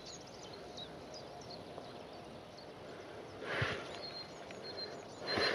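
Faint outdoor background with small birds chirping in short high notes, and one short soft puff of noise about three and a half seconds in.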